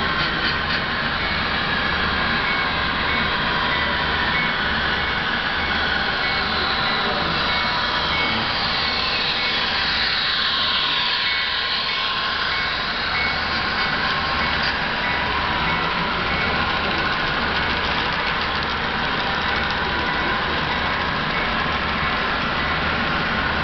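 HO scale model passenger train running past on the layout, its wheels and motor whining in a pitch that rises and then falls as it goes by, about ten seconds in, over a steady loud background of layout and room noise.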